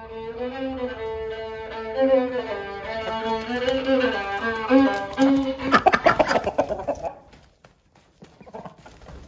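Fiddle music playing a lively tune, then a short burst of rapid, noisy scratching and clattering about six seconds in before it goes quiet.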